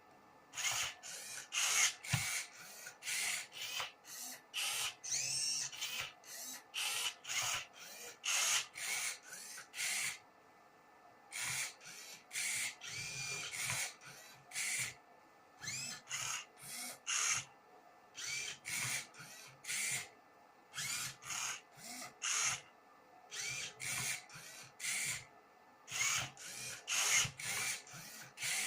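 Prototype Rubik's cube solving robot's motors turning the cube's faces move after move, working through the last-layer corners: a run of short whirring bursts, roughly two a second, with a few short pauses between.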